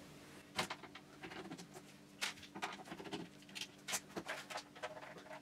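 Irregular clicks, taps and scrapes of hands gripping and working at the Tilgin HG2381 router's plastic case, which is held shut by plastic clips that won't let go.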